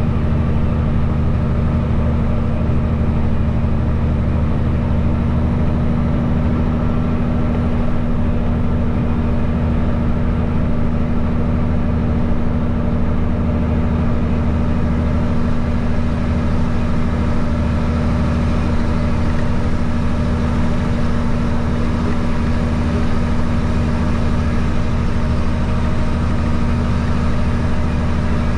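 Peterbilt winch truck's diesel engine running steadily at an unchanging pitch, heard from inside the cab as the truck drives.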